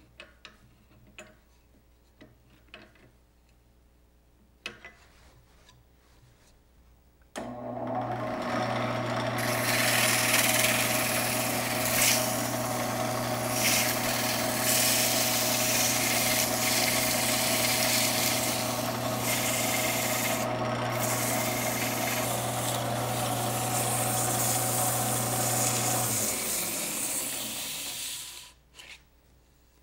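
A few faint clicks, then about seven seconds in a wood lathe starts with a steady hum. Sanding rubs loudly against the bottom edge of the spinning wooden banjo rim, smoothing it to a slightly rounded profile. Near the end the motor cuts off and the rubbing dies away as the rim winds down.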